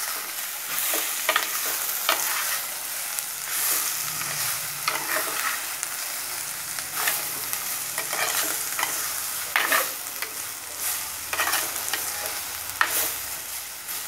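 Sliced beetroot, onion and green chillies sizzling in oil in a clay pot while they are stirred with a spoon. The steady sizzle is broken by irregular scraping strokes against the pot, roughly once a second.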